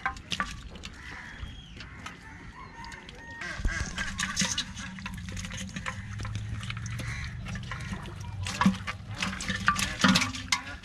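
Live fish flapping and slapping in a water-filled metal pot as a hand rummages through the catch. The sound is irregular wet clicks and splashes, busier from a few seconds in.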